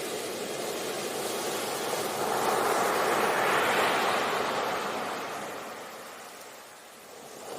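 Ocean waves on a beach: a wave's rush swells to a peak about halfway through, then ebbs away, with the next one starting to rise at the very end.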